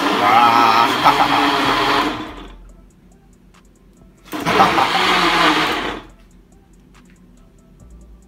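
Countertop blender run in two pulses of about two seconds each, with a short pause between, blending a smoothie of fruit, yogurt and milk.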